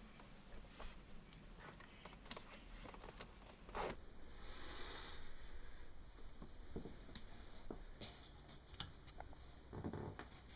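Faint rustling with scattered soft clicks and knocks over a quiet room hum.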